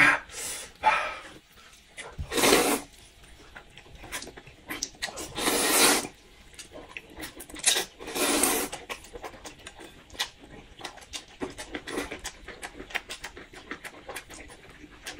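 Noodles being slurped and chewed close to the microphone. There are three long slurps in the first nine seconds, the longest about a second, with wet chewing and lip smacks between them and after.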